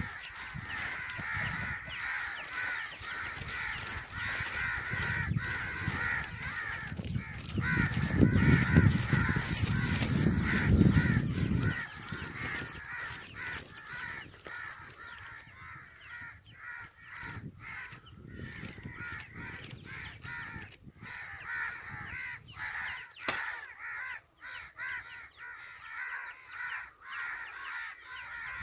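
A chorus of birds calling continuously, a dense run of harsh caw-like calls. For the first twelve seconds a low rumble runs under it, loudest around eight to eleven seconds in and then stopping abruptly. There is one sharp click a little over twenty-three seconds in.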